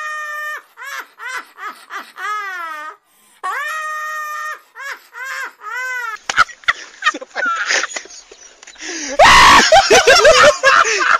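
An elderly woman laughing loudly in shrill, long-held peals, some swooping up and down in pitch. About six seconds in it changes to shorter, choppier laughing and voices, with a loud, harsh scream-like burst about nine seconds in.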